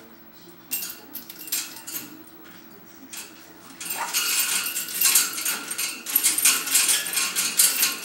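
Metal clinking and rattling in a wire birdcage as a Timneh African grey parrot jostles its hanging toy: a few scattered clinks at first, then a dense run of rapid clinks from about halfway.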